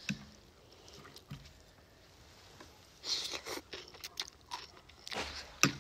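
Slurping instant noodles: a long slurp about three seconds in and another near the end, with quieter chewing and mouth clicks between.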